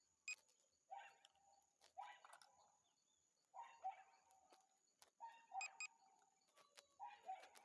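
Faint animal calls repeating about every second and a half, each a short call of one or two notes.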